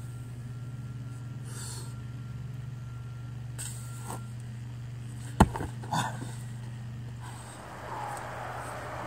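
A heavy field stone is dropped onto the ground with one loud thud about five and a half seconds in, then a smaller knock just after. Short sharp breaths of effort come during the lift. A steady low electrical hum from a nearby electric substation runs underneath, and a vehicle passes on the highway near the end.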